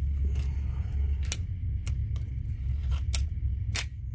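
Sharp metallic clicks from the Gamo Swarm Whisper 10X air rifle's mechanism as it is handled, about five in four seconds at uneven intervals, over a steady low rumble.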